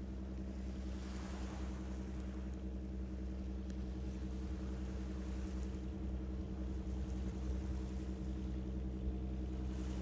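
Cruise ship's engines giving a steady low drone across the water, an even hum of several fixed low tones as the ship makes way into the harbour.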